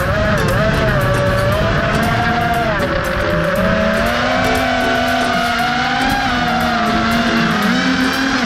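FPV quadcopter's brushless motors and propellers whining, the pitch rising and falling as the throttle changes.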